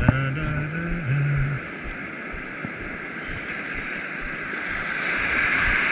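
Ocean surf washing and breaking around the shallows, a steady rush of water that swells louder near the end. A low hum sounds in the first second and a half.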